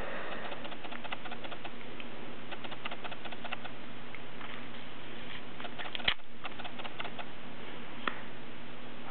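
Faint, irregular ticking and small clicks over a steady low hum and hiss, with one sharper click about six seconds in and a softer one about two seconds later.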